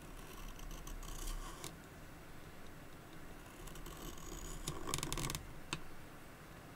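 A knife blade shaving wood off a pencil by hand: a crisp, crackly cutting stroke at the start, then a longer, louder one about three and a half seconds in, followed by a single light click.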